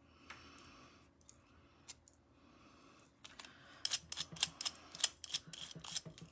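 Soft paper rustling, then from about four seconds in a quick run of sharp, crisp clicks and crackles as tiny scraps are poked out of a die-cut paper butterfly with a small hand tool.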